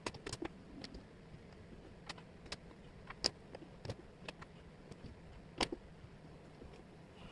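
Small wooden jigsaw puzzle pieces clicking and tapping against each other and the table as they are picked up and pressed into place: irregular sharp clicks, the loudest about three seconds in and again past five and a half seconds, over a faint steady hiss.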